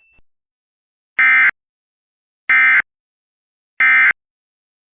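Emergency Alert System end-of-message code: three short, identical bursts of harsh digital data tones (SAME frequency-shift signalling), evenly spaced a little over a second apart. The bursts signal the end of the alert message.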